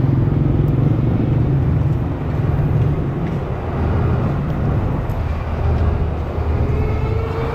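Steady engine and road noise from a moving road vehicle, mostly a low rumble. A faint tone rises slightly near the end.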